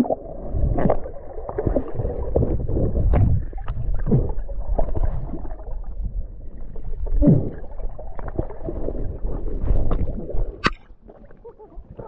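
Underwater sound picked up by a submerged camera: a muffled low rumble and gurgling with scattered knocks. Muffled cries from a person shouting underwater glide in pitch about a second in and again around seven seconds. The rumble drops away sharply shortly before the end.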